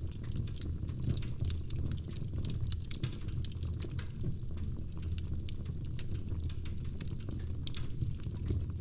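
Wood fire crackling in a fireplace: frequent, irregular sharp pops and snaps over a steady low rumble of burning flames.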